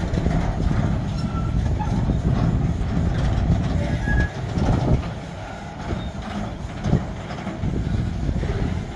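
Open freight wagons of a bauxite train rolling past: a steady low rumble of steel wheels on rail, with a few clanks as wheels cross rail joints.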